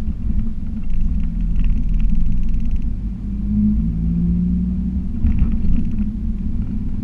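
Car engine and road rumble heard from inside the cabin while driving, a steady low drone with the engine note shifting slightly in pitch.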